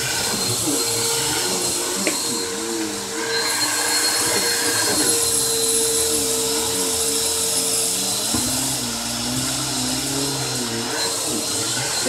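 Upright vacuum cleaner running steadily, with a constant motor whine. Beneath it a lower tone wavers up and down.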